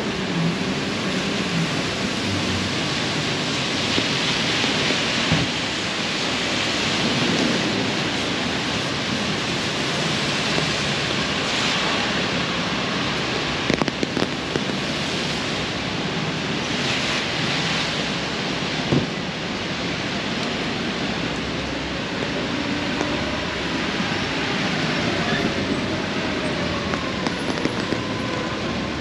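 Heavy rain falling on an open umbrella held overhead and on the wet street: a steady hiss, with a few sharp taps about halfway through and again a few seconds later.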